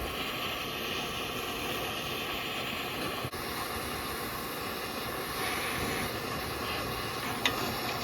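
Gas torch burning with a steady hiss, its flame melting the rubber out of a seized suspension bushing. A sharp click near the end.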